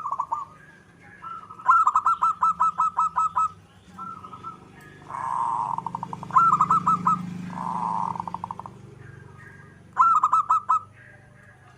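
Zebra dove (perkutut) song: runs of quick, clipped coo notes, the longest about ten notes, with two rolling trills in the middle.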